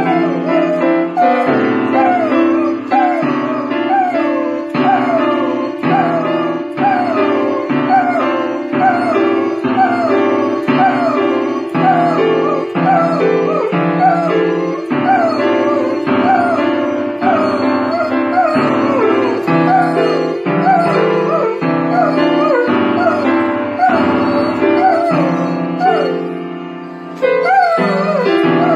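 Piano chords played at a steady pace, with an Irish setter howling along over them in short, repeated rising and falling glides.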